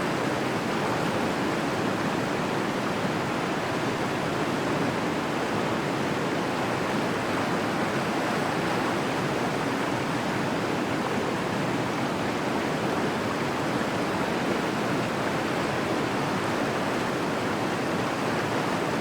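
A high waterfall with a drop of about 122 metres, its falling water making a steady, unbroken rush.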